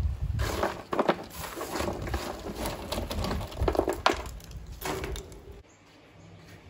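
Irregular knocking and clattering of objects being handled, with a few sharp clicks; it stops abruptly near the end.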